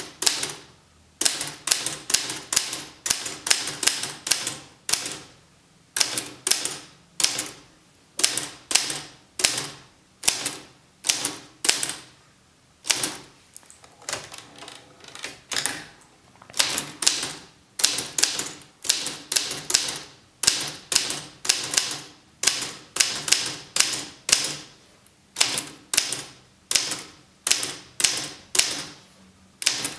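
Olivetti Studio 44 manual typewriter being typed slowly, one sharp key strike at a time, roughly one to two a second. Around halfway through the strikes give way to a softer sliding sound as the carriage is returned for a new line.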